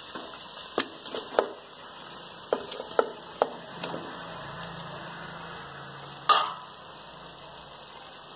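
Wooden spatula knocking and scraping against a metal pot as raw mutton pieces are added and turned into the tomato-onion masala: a scattered series of sharp knocks, the loudest past the middle.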